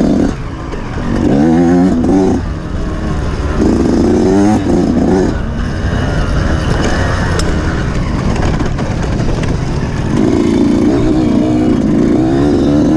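Off-road motorcycle engine revving up and down in spells as the throttle is opened and closed, over a steady low rumble of the running engine.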